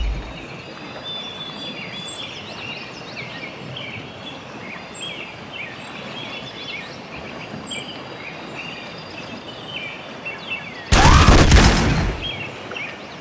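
Outdoor nature ambience with small birds chirping steadily. About eleven seconds in, loud pistol fire lasting about a second, then the birdsong carries on.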